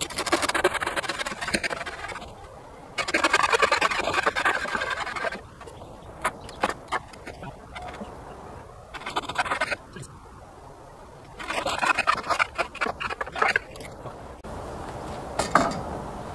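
Hand saw cutting through pallet wood in four bursts of quick strokes, with short pauses between.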